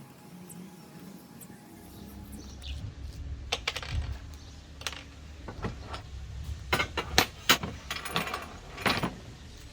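Metal hinges and hardware clinking and tapping against an aluminium extrusion frame as they are handled and set in place: quiet at first, then a run of sharp, irregular clinks from about three seconds in.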